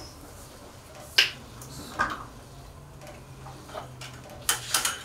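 A few sharp clicks and taps of kitchen tools being handled: a sharp one about a second in, another near two seconds, and a quick cluster of clicks near the end, over a faint steady hum.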